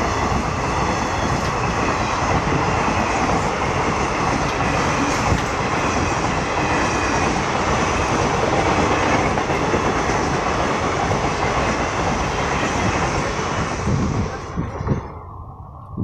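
Passenger train running through a level crossing: a loud, steady rumble and clatter of wheels on rails, which dies away quickly about fourteen seconds in.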